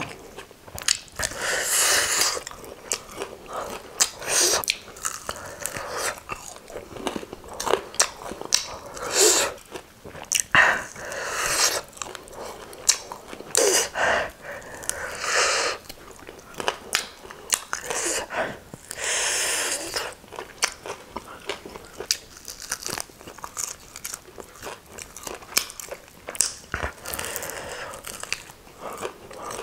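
Eating fried chicken wings: biting, pulling meat off the bone and chewing, heard as a steady run of short sharp clicks, smacks and brief crackly bursts.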